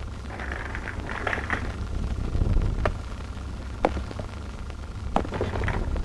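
Handling noises under a steady low rumble: a faint rustle early on, then a few single sharp clicks and taps, about one a second, as small objects are handled.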